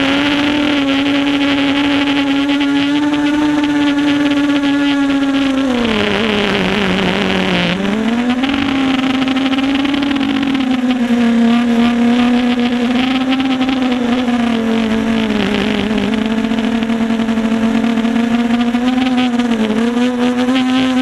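Steady whine from a 250-size FPV quadcopter's electric motors and propellers. The pitch sags and recovers about six seconds in, and dips more slightly a couple of times later.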